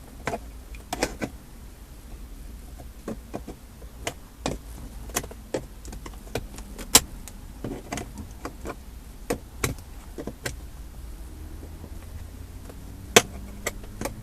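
Knife blade clicking and scraping against the plastic trim while the door lock and hazard switch panel is pried up out of the console: irregular sharp clicks, a few of them louder, over a faint low hum.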